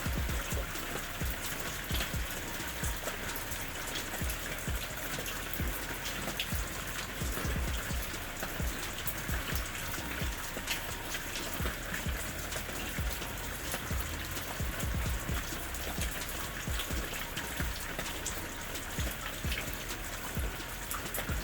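Steady rain falling, with many separate drops pattering and ticking on a surface over a constant hiss.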